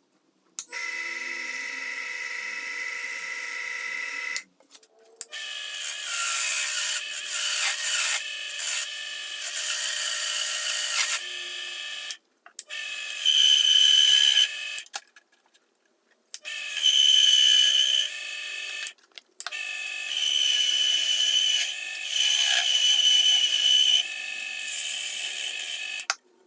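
Wood lathe running with a steady whine while a cutting tool works a spinning maple blank, making a hissing cut. The sound comes in about eight short stretches that start and stop abruptly, with brief silences between them.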